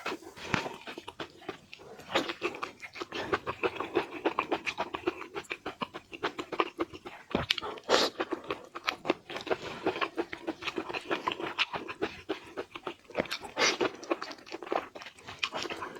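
Close-miked eating sounds of shrimp being peeled and eaten: a dense, irregular run of wet, crackling clicks and mouth noises.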